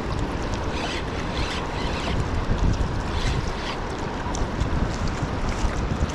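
Wind buffeting the microphone, an uneven low rumble over a steady wash of water around a kayak, with faint irregular high ticks scattered through.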